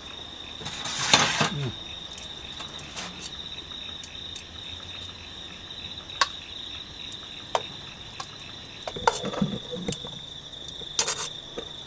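Crickets chirping steadily, with the clink and scrape of metal tongs against a camp oven and bowls as lamb shanks and vegetables are served. The loudest is a scrape about a second in; sharp clicks follow, with a cluster of clatter near the end.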